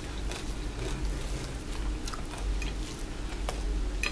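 A person chewing food with the mouth closed, with a few light clicks of a metal fork against a plate, over a low steady hum.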